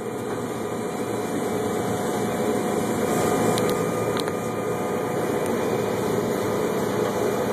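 John Deere 9670 STS combine running steadily while harvesting wheat, heard from inside the cab as an even machine hum and rush. Two faint clicks about halfway through.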